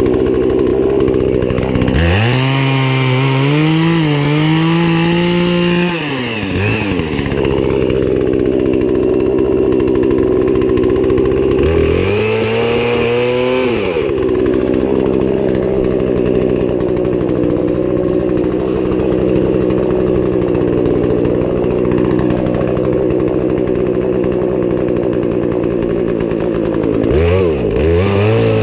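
Poulan Pro two-stroke chainsaw running at a steady lower speed, revved up three times: about two seconds in for roughly four seconds, again for about two seconds halfway through, and once more near the end.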